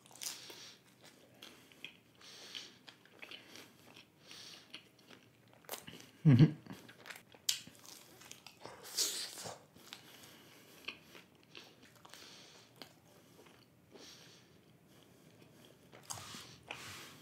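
Close-miked mouth sounds of a person biting into and chewing a slice of pizza: soft, irregular wet chewing and small clicks, with one louder low thump about six seconds in.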